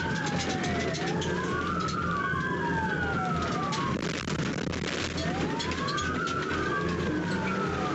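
Police car sirens on a slow wail: two tones rise and fall about every couple of seconds, one climbing as the other drops, over a steady low engine and road hum from the car in the pursuit.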